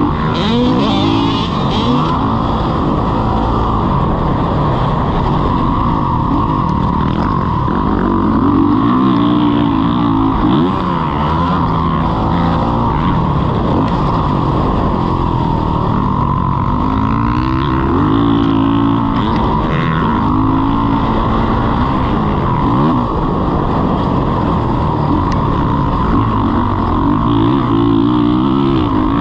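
Motocross dirt bike engine running hard, its pitch sweeping up and dropping back over and over as the throttle opens and closes around the track.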